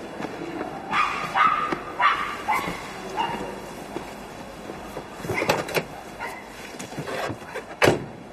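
A dog barking several times in the first few seconds, then a few clicks and a car door clunking shut near the end.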